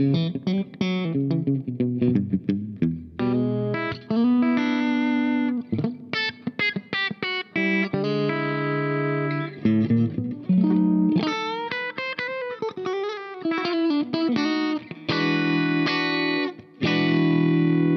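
Fender Aerodyne Special HSS Strat played clean through the Diamond-style compressor side of a Caline Key West pedal, every knob at 12 o'clock, into a clean amp with cab-sim reverb. Picked single notes and chords, with a few bent notes a little past the middle, and strummed chords left ringing near the end.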